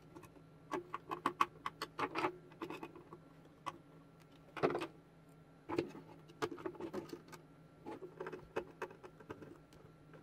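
Small screwdriver driving screws into a plastic speaker housing: a run of light, irregular clicks and scratches, with a louder scrape about halfway through.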